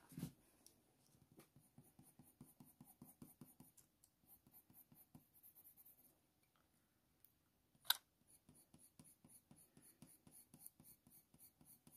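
Faint, quick scratching strokes of a Faber-Castell Polychromos coloured pencil shading on hot-pressed watercolour paper, with a soft knock near the start and one sharp click about eight seconds in.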